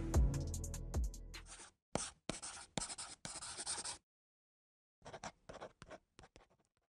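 Music fading out over its last drum hit, then a pen scratching on paper in a run of quick strokes, as of a signature being written. After a short pause, a few lighter strokes follow and die away.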